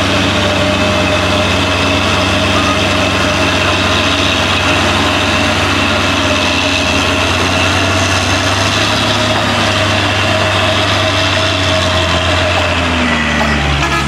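Heavy truck's diesel engine running steadily and loudly close by, its pitch dropping near the end.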